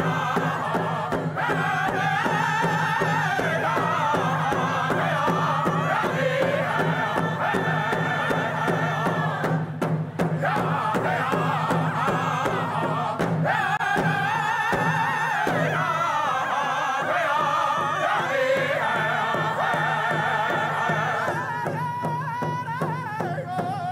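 Native American drum song: a group of voices singing a chant over a steady beat of hand-held frame drums.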